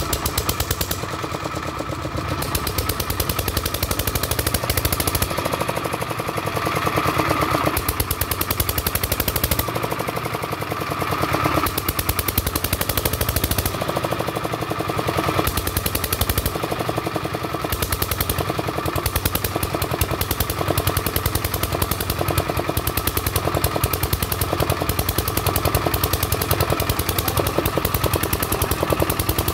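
The single-cylinder engine of a Kirloskar 2.5 kVA generator runs steadily on its test run after a full repair, with a rapid, even clatter of firing strokes.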